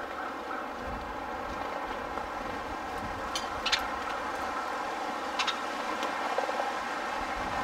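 Steady background rumble of distant traffic, with a few sharp taps or clicks about three and a half and five and a half seconds in.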